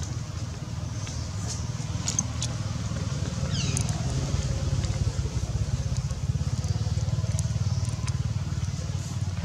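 Steady low rumble throughout, with a brief high chirp falling in pitch about four seconds in and a few faint clicks.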